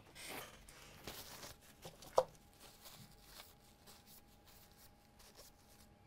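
Faint handling noises at a repair bench: short scrapes and rustles of hands and tools, with one sharp click a little over two seconds in, then quieter.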